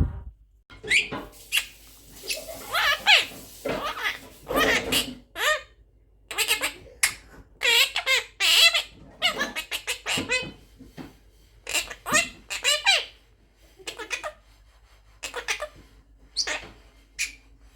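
Quaker parrot (monk parakeet) chattering: a long run of short, high, rasping calls and squawks with only brief gaps.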